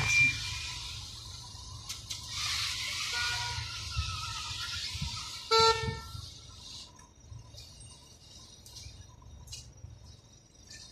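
Busy city street traffic, a steady hiss of passing cars that fades in the second half, with one short car horn honk a little past halfway, the loudest sound.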